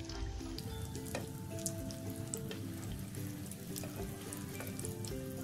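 Hot oil sizzling and crackling as breaded chicken bread balls deep-fry in a pan, with many small pops throughout. A soft background melody of short held notes plays alongside.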